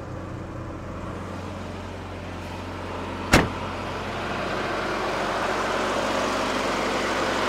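GM 2.5 L Iron Duke four-cylinder engine idling steadily with the air-conditioning compressor switched on, growing louder over the second half as the engine bay is neared. There is a single sharp knock a few seconds in.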